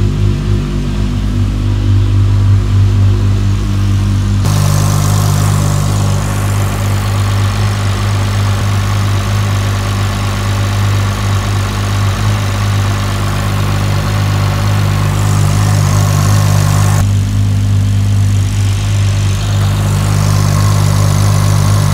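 Toyota 2JZ straight-six engine idling steadily.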